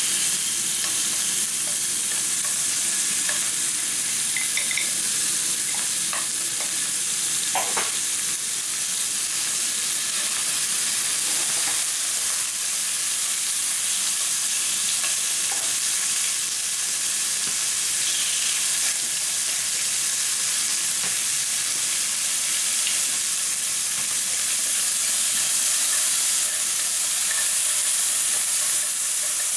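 Thin slices of pork sizzling in a hot nonstick frying pan, a steady hiss, as they are stirred around with long wooden cooking chopsticks.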